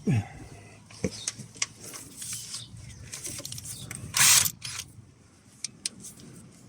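Handling noise as the camera is fixed onto a tripod: scattered clicks, creaks and ratcheting knocks, with a short loud scrape about four seconds in.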